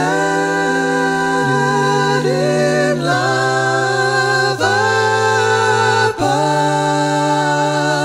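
A hymn sung a cappella in layered vocal harmony, held chords moving to a new chord every second or two, with short breaks between phrases.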